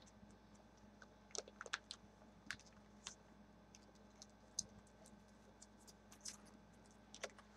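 Faint handling of paper mail: scattered light clicks and rustles as an envelope and paper items are moved and set down on a cloth-covered table.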